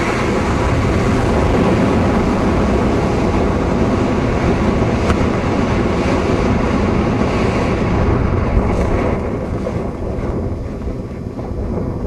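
Wind rushing steadily over a helmet camera's microphone as a skydiver flies a parachute canopy in to land. It eases off and turns quieter about ten seconds in, as the jumper slows at landing.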